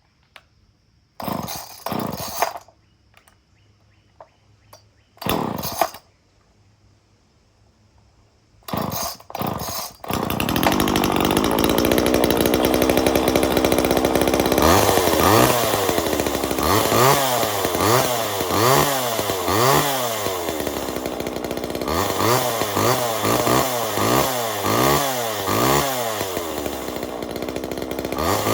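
Homelite XL-2 two-stroke chainsaw being pull-started: three short bursts of pulling, then the engine catches about ten seconds in and runs. From about halfway through, the throttle is blipped over and over, the engine revving up and dropping back about once a second.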